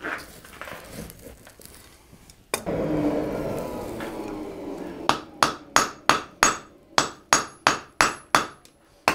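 Hand hammer striking a bundle of steel bars at welding heat in a swage block on the anvil, a steady run of ringing blows about three a second, forge-welding the bundle of a braided twist handle. A steady rushing noise runs for a couple of seconds before the blows start.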